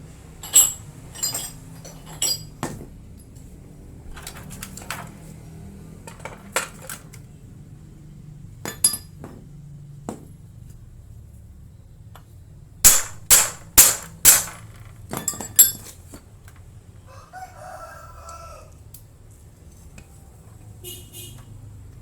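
Sharp metallic clinks and taps in scattered bunches, the loudest a quick run of five about two thirds of the way through. Shortly after, a rooster crows once in the background.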